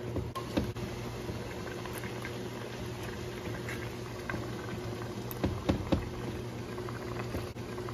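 Beef bubbling in curry masala sauce in a stainless steel pot, stirred with a wooden spatula that scrapes and knocks against the pot now and then, the loudest knocks coming in a quick cluster a little past the middle. A steady low hum runs underneath.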